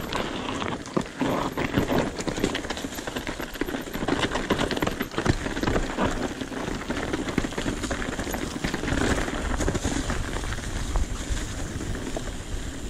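Mountain bike riding down a rocky, gravelly trail: tyres crunching and pattering over loose stones, with steady rattling and clicking from the bike and a low rumble of wind on the microphone.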